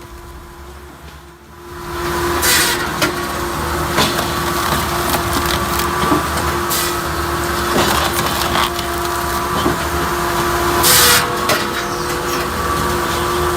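Rapido Loco 20 firewood processor at work: its Deutz diesel engine and hydraulics running steadily while logs are sawn and split, with wood cracking and splintering. Quiet for about the first two seconds before the machine sound comes in.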